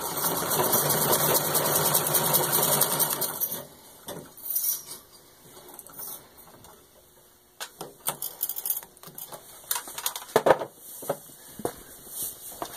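Singer 127 vibrating-shuttle treadle sewing machine running at full speed through six layers of denim in a stitch test: a fast, even clatter of the needle and shuttle mechanism. It stops suddenly about three and a half seconds in, followed by scattered light clicks and knocks as the machine and fabric are handled.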